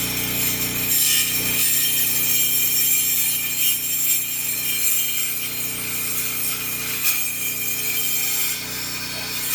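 Electric power saw running steadily with a new blade, cutting: a constant motor hum under a rasping saw noise.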